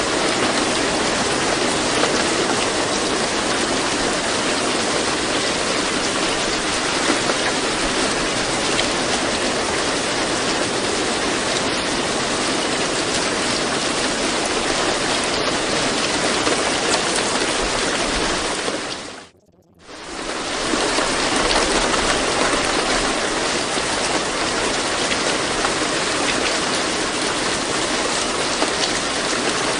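Steady rain sound, an even hiss of falling water, used as the masking track of a subliminal recording. About two-thirds of the way through it fades out to near silence for about a second, then fades back in.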